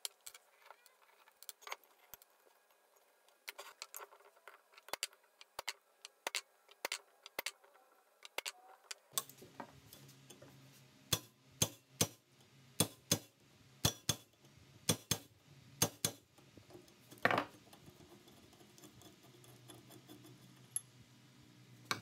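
Light metallic clicks and taps from small steel parts of an old cast-iron vise being handled and worked on a wooden bench: scattered at first, then a steadier run of sharper clicks about two a second, followed by one slightly longer scrape.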